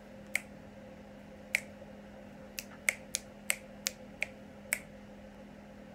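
A person snapping her fingers, about nine sharp snaps at an uneven pace, coming quicker in the middle, over a faint steady hum.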